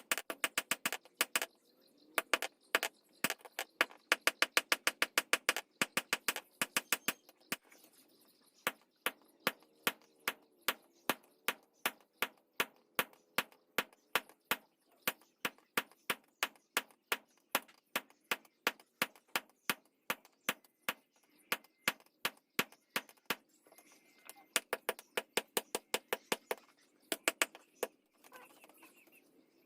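A hammer striking hot steel on an anvil: sharp, ringing blows in a steady rhythm, about five a second at first, then about three a second after a short pause.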